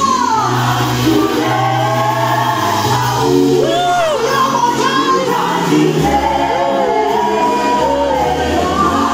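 South African gospel vocal group singing live with band accompaniment: several voices over steady, held bass notes, with a voice swooping up and down between notes several times.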